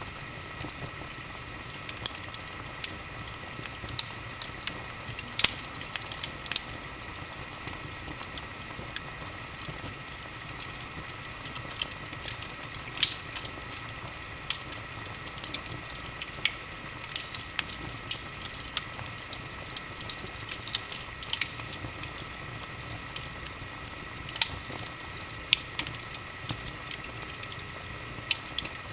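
Large open fireplace fire burning, crackling and popping at irregular intervals over a steady hiss.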